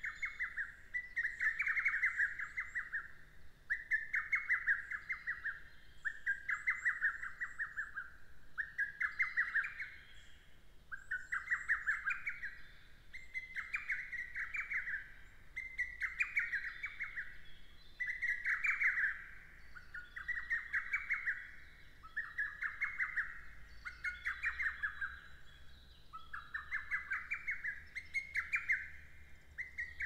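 Lesser cuckoo singing, its short phrase repeated over and over, about every second and a half to two seconds.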